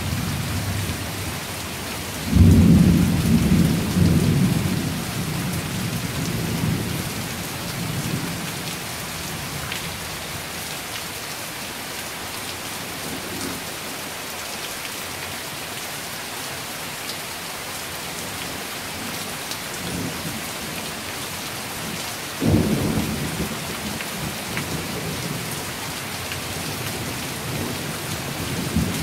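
Heavy rain falling steadily in a thunderstorm. A roll of thunder breaks suddenly about two seconds in and dies away over several seconds, and a second one comes about twenty seconds later.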